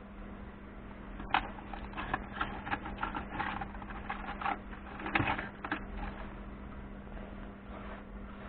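Irregular clicking and clattering of hard objects being handled, starting about a second in and stopping about two-thirds of the way through, over a steady low hum.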